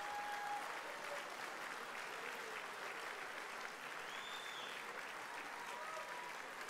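Audience applauding with steady, even clapping.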